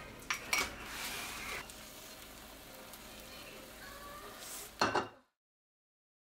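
Clay rice pot sizzling softly on the burner, with two sharp clinks of handled crockery about half a second in and another knock near the end, after which the sound cuts off suddenly.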